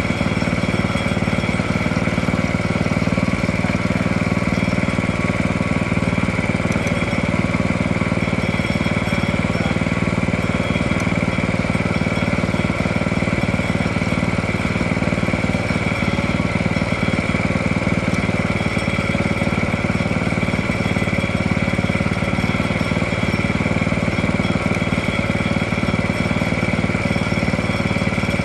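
Log-milling sawmill's engine running at a steady, unchanging speed.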